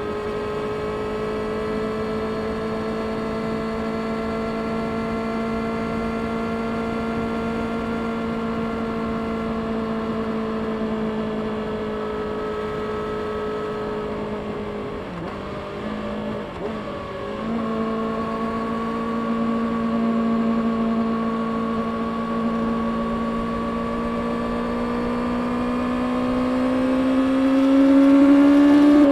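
Stock-exhaust 2024 Kawasaki Ninja ZX-6R's 636 cc inline-four engine running at fairly steady revs, with a brief break in its note about halfway through. It then rises gradually in pitch toward the end as it is revved up.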